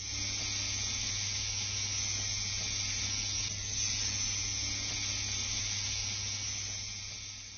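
Tattoo machine running steadily as it lines skin: a constant low hum with a hiss over it, fading out near the end.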